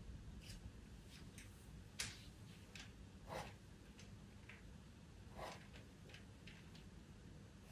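Pastel pencil making short strokes on pastel paper: about a dozen faint, irregularly spaced scratches, the sharpest about two seconds in.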